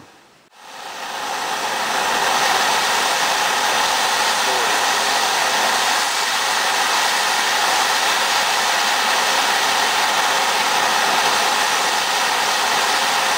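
Gas torch flame burning with a steady, loud hiss as it heats a penny on an anvil; the hiss fades up over the first couple of seconds, then holds even.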